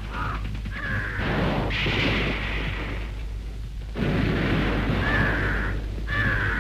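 Crows cawing repeatedly, mixed with bursts of rough rumbling noise, over a steady low hum.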